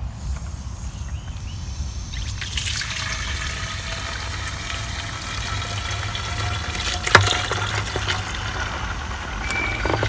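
Garden hose running water into a plastic pump sprayer jug, filling it. The water starts about two seconds in, with one sharp knock about seven seconds in.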